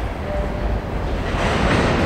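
New York City subway train coming up through the tunnel toward the station, a steady rumble that grows louder about halfway through as it nears.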